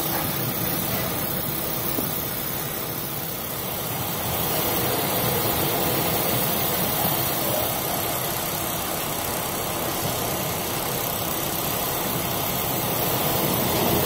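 Steady rushing noise with an underlying hum aboard a container ship driving into a storm: wind and breaking sea over the ship's machinery. It swells a little in the middle.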